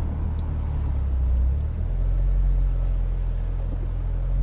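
Car engine running with a low, steady rumble, heard from inside the car. The hum shifts slightly about two seconds in.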